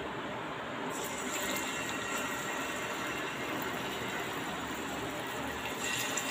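A masala-marinated seer fish (vanjaram) slice laid into hot oil on a dosa tawa about a second in, then sizzling steadily as it starts to shallow-fry.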